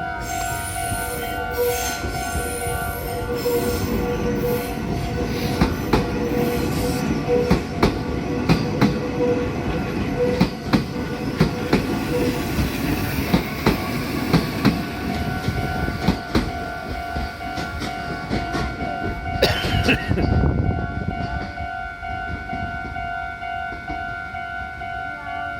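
A train running through a Japanese level crossing while the crossing signal keeps ringing its steady two-tone bell. The wheels clack rapidly over the rail joints for most of the pass, then thin out about twenty seconds in, leaving only the crossing bell.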